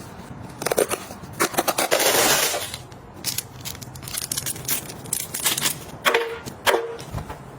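Household handling sounds: a quick run of sharp clicks and knocks, a rustling hiss lasting about a second near the start, then scattered knocks with two short small rings past the middle.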